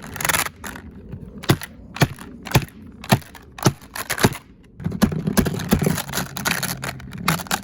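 Plastic box fan running with its blades broken off, the loose blade pieces clacking inside the grille cage: sharp knocks about twice a second, turning into a denser rattle over the motor's low hum about five seconds in.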